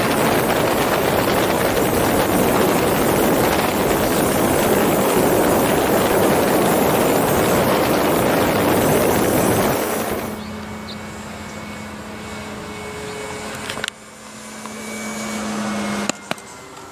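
Rushing wind and motor noise heard from a camera mounted on a radio-controlled model warplane in flight. About ten seconds in this changes to a ground view, where the model's engine hums steadily overhead and rises slightly in pitch. Near the end comes a sharp crack as a thin 3D-printed practice bomb filled with corn starch hits the runway.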